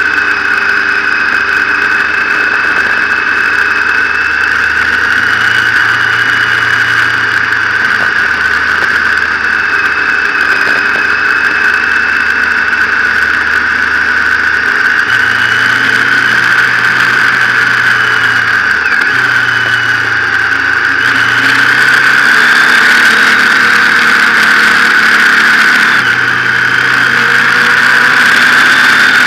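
Motorcycle engine running under way, its pitch stepping up and down several times as speed and throttle change, under a steady high whine and rush of wind and road noise.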